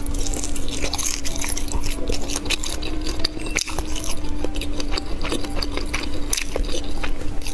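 Close-miked biting and chewing of a glazed sausage, a stream of short clicks from the mouth, over a faint steady hum.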